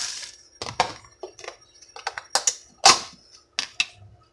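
Kitchen items being handled on a countertop: a series of sharp clicks and knocks from containers and utensils being picked up and set down, with short hissy noises between them.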